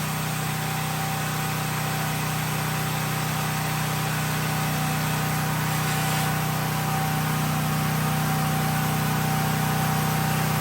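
CNC plasma cutter torch cutting sheet steel: a steady hiss of the air arc over a constant hum.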